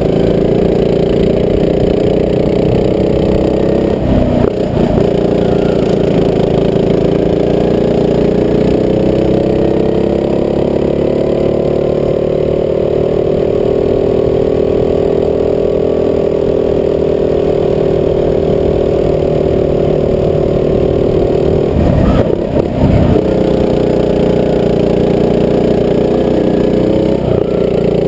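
Rental go-kart engine running under throttle, heard from on board. Its pitch drifts gently up and down with speed, with two brief rough patches about four seconds in and about twenty-two seconds in.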